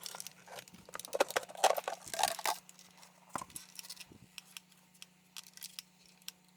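Light clicks and taps of hard plastic vacuum cleaner parts being handled, a quick cluster of knocks in the first two and a half seconds, then a few scattered ticks.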